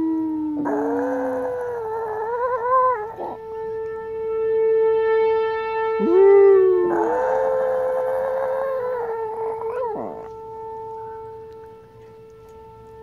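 Old Chihuahua howling: two long, wavering howls, one starting about half a second in and the next about six seconds in. A steady siren tone holds between the howls and carries on after them, fading near the end.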